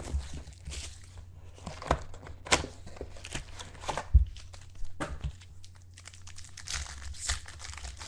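Trading-card pack wrappers being torn open and crinkled while cards are handled: irregular crackling and rustling, with a sharp thump about four seconds in.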